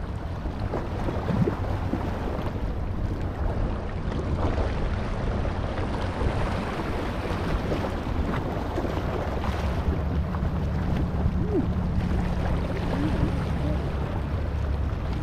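Small harbour waves lapping and washing over a rock ledge, with wind rumbling on the microphone.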